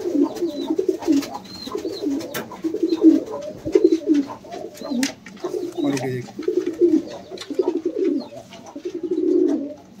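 Indian fantail pigeons cooing over and over, one low warbling coo after another, about one a second, with a few faint clicks among them.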